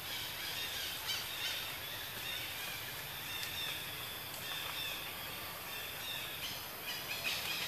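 Forest ambience: small birds chirping over a steady high hiss, with the calls growing busier near the end.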